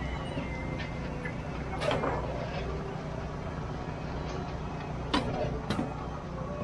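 Busy night-market ambience: background chatter of people over a steady low hum, with a few sharp clatters, one about two seconds in and two more near the end.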